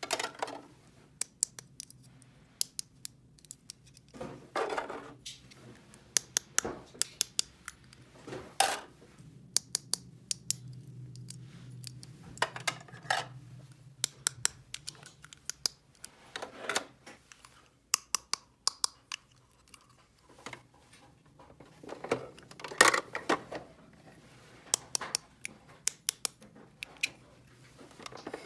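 Small plastic toy pieces being handled, with repeated light clicks and taps and a few short scraping sounds.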